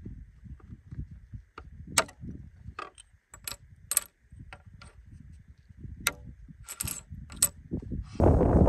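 Pieces of mirror glass clinking and clicking against each other and the wooden tabletop as they are handled, with about eight sharp clicks spread irregularly. Wind starts buffeting the microphone just before the end.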